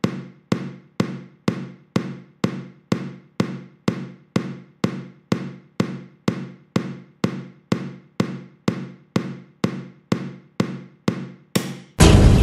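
Suspense film score: a low, pitched drum-like hit repeating steadily about twice a second, each one ringing out, then a sudden loud crash at the very end.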